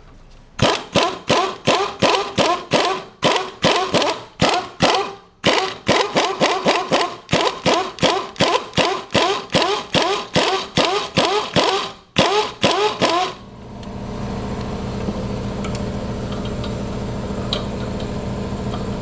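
Impact gun on the 14mm top nut of a front shock absorber, trigger pulled in short rapid bursts, about two or three a second, each a brief whirring hammer. The quick pulses are meant to get the most torque on a nut that spins with the shock shaft. From about 13 seconds in, the bursts give way to a steady mechanical hum.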